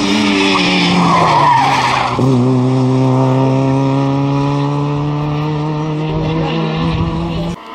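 Peugeot 106 rally car passing at full speed on tarmac. Its tyres squeal briefly as it goes by and the engine note drops sharply, then holds a steady pitch as it pulls away, until it cuts off abruptly near the end.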